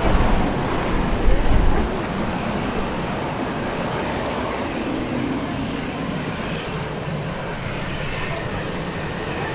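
Jet airliner landing: a loud, low engine rumble for the first two seconds or so, then a steadier, quieter jet roar as the plane rolls out down the runway.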